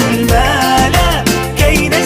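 Background music with a steady, upbeat rhythm and a gliding melody line over it.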